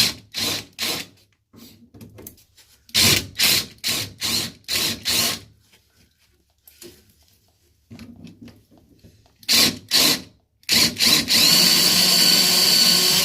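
Power drill run in short trigger bursts, several in quick succession, then held on steadily for about two and a half seconds near the end.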